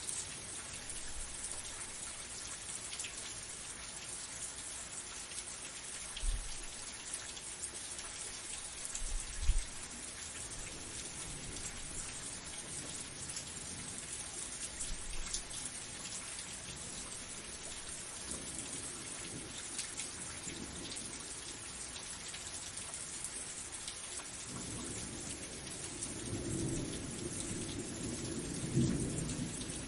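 Steady heavy rain hissing, with two short low thumps about a third of the way in and rolling thunder rumbling up over the last five seconds.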